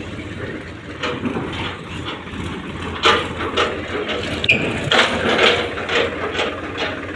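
Tractor engine idling, with a series of sharp metallic clanks and clicks from about three seconds in as the trolley hitch is coupled.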